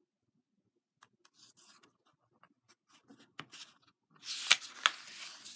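Pages of a hardcover picture book being handled and turned: faint paper rustles and small clicks, then a louder swish of the page with a couple of sharp snaps near the end.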